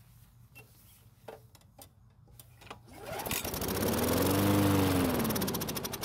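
Briggs & Stratton lawn mower engine pull-started, catching about three seconds in and revving up, then slowing and fading as it starts to die. Old contaminated fuel still in the tank well is still reaching the carburettor.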